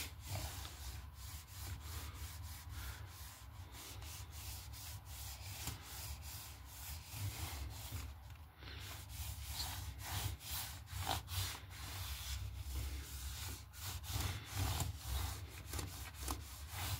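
Cleaning wipe rubbed back and forth over a ThinkPad laptop's keyboard and palm rest, giving faint, uneven rubbing strokes.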